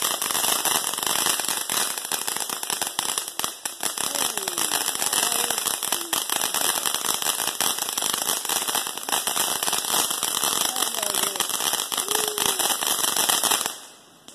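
Ground fountain firework spraying sparks, a dense, steady crackle of countless fast pops over a hiss, cutting off suddenly near the end as it burns out.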